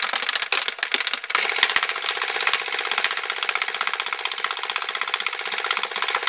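Homemade airsoft minigun built around an electric M4 airsoft gun, firing on full auto: a rapid, continuous mechanical rattle from its battery-driven gearbox.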